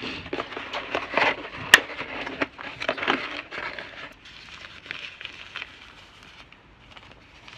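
Packaging being handled while camera accessories are unpacked: rustling and crinkling with scattered clicks. One sharp click a little under two seconds in is the loudest, and the rustling softens from about four seconds on.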